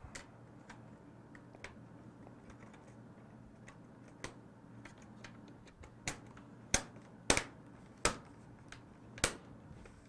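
Plastic keyboard trim piece of an HP laptop being pressed down and clicked into place: light scattered plastic clicks, then five sharper clicks in the second half.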